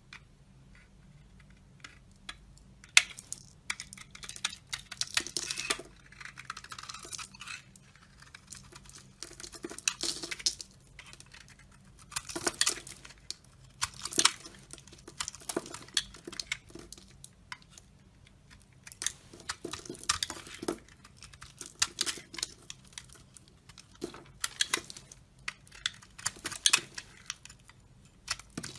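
A knife cutting and scraping into a bar of dry soap, making crisp scratchy strokes and crackles in irregular bunches with short pauses between them. The sharpest crack comes about three seconds in.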